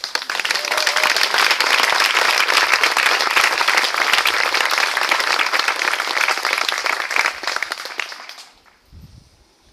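Audience applauding: many hands clapping at once, dying away after about eight seconds.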